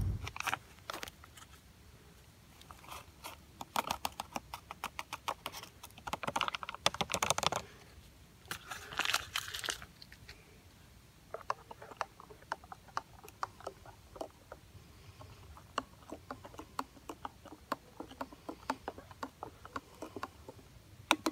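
An instant-soup sachet crinkling as its powder is shaken out into a stainless steel cup. This is followed by a plastic spork stirring in the cup, with a long run of small quick clicks and scrapes against the metal.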